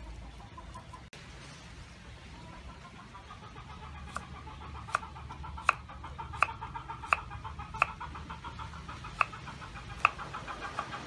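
A large kitchen knife chopping through firm slices onto a round wooden chopping board, a sharp chop roughly every 0.7 seconds from about four seconds in. Under the chops, a faint buzzing background sound grows louder.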